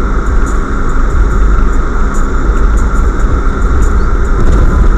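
A car driving along a wet, snowy highway, heard from inside the cabin: a loud, steady rumble of engine and tyre noise with faint scattered ticks.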